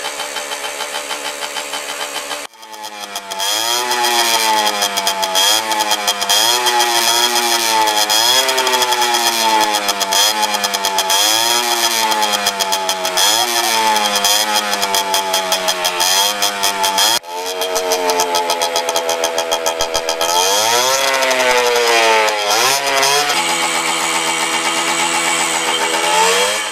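Honda MTX two-stroke enduro engine idling, then revved up and down in repeated throttle blips about once a second, the sound breaking off abruptly twice. Near the end it holds a higher rev, then settles to a steady fast idle.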